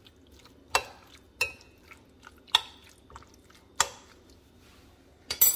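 A metal fork stirring raw marinated chicken pieces in a glass mixing bowl: sharp clinks of metal on glass about once a second, five in all, the last two close together, over a soft wet squish of the meat being turned.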